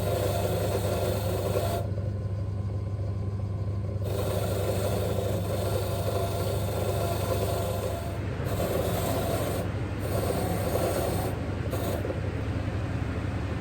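A steady motor hum with rasping, scraping noise that comes and goes in several spells, as when a workpiece is pressed against a running abrasive tool and lifted off.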